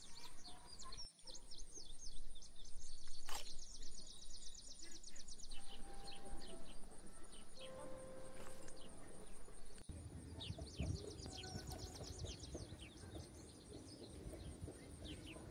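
Small birds chirping and trilling in quick runs of short notes, in two main bursts, over a steady outdoor background.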